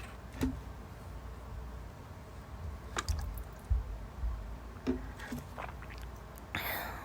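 A few faint scattered clicks and small soft noises over a low steady hum.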